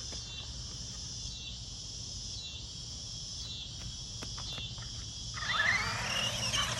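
Insects chirring in a steady high-pitched chorus. About five and a half seconds in, a louder sound with sliding, changing pitch joins it.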